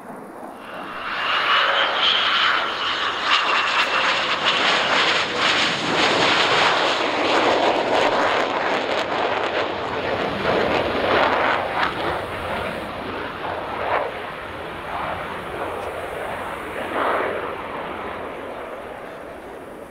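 F-22 Raptor's twin Pratt & Whitney F119 turbofans on a low pass and climb-out: a high whine over the jet rush as it comes by, then a loud crackling jet roar through the middle that slowly fades as the jet climbs away.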